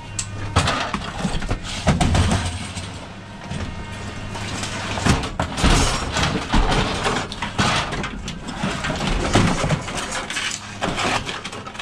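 Irregular knocks and clatter of scrap being handled and moved about, over a steady low hum.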